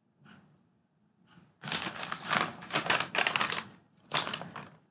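Computer keyboard being typed on: a rapid, loud run of key clicks starting about one and a half seconds in, a brief pause, then a short last flurry near the end.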